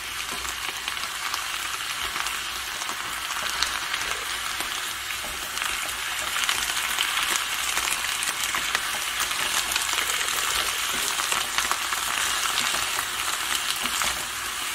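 Sliced onions with soy sauce sizzling in an oiled frying pan as they are tossed with two spatulas, with light clicks and scrapes from the spatulas. The sizzle grows a little louder about six seconds in.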